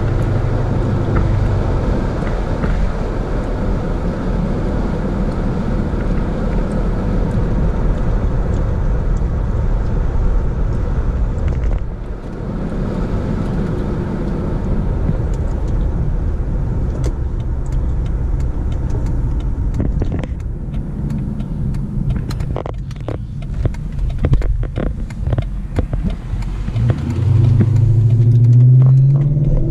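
Car driving: steady engine and road rumble, with a run of sharp clicks and knocks in the last third and the engine revving up near the end.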